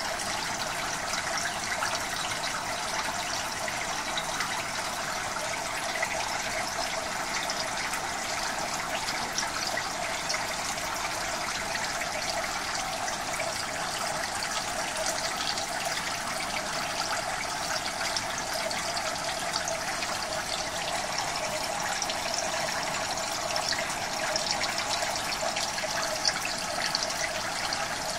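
Steady rush and trickle of water circulating through a fish-rearing tank.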